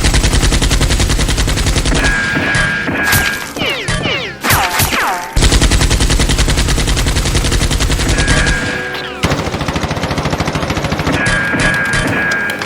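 Rapid automatic gunfire sound effect: two long, fast bursts of shots, then lighter fire. Between and after the bursts come clusters of ringing tones that fall in pitch.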